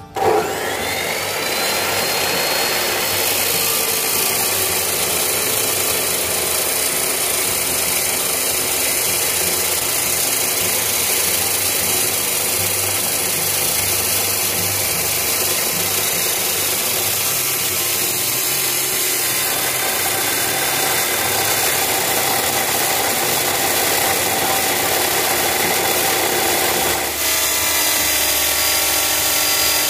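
Benchtop abrasive cut-off saw (chop saw) starting up, its whine rising over the first couple of seconds, then grinding through a welded joint in steel angle iron with a steady harsh noise. Near the end the sound dips briefly and changes tone as the disc works through the piece.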